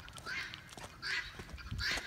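Footsteps crunching on gravel at a walking pace, three steps.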